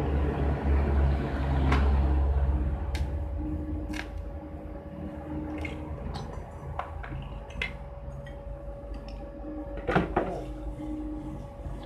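Steady electrical hum of a welding machine, loudest in the first few seconds, with scattered metal clinks and knocks as steel welding pieces and tools are handled on a concrete floor; one louder knock near the end.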